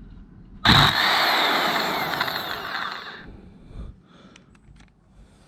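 Impact gun run in reverse to undo a wheel bolt: a loud burst starting a little under a second in, lasting about two and a half seconds, its pitch falling as it trails off. A few light clicks follow.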